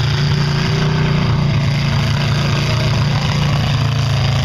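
Mud-bogging truck's engine running hard under load as it drives through a mud pit, a steady, loud, low drone.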